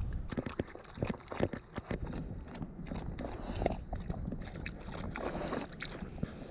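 Irregular crackles, snaps and thumps of footsteps moving through forest undergrowth, over a low rumble of wind buffeting the microphone.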